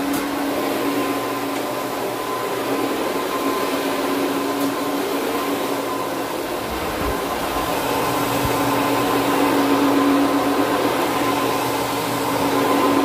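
Counter-rotating brush (CRB) carpet machine running steadily, its electric motor giving a constant hum with a higher whine over the brush noise.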